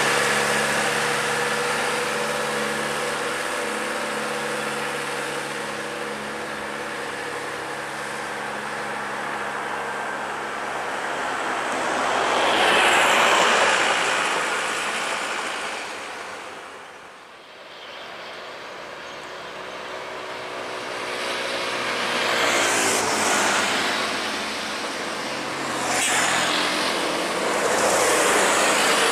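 Heavy diesel trucks and other road traffic on a steep uphill grade. Engines drone steadily while vehicles pass close by, loudest about twelve seconds in and again near the end, with a sudden drop in sound about seventeen seconds in.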